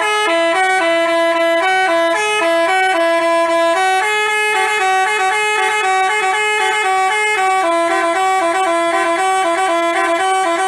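Telolet 'basuri' multi-tone horn playing a quick melody, its loud, bright notes changing every fraction of a second without a break.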